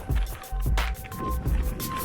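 Background electronic music with a heavy, steady beat.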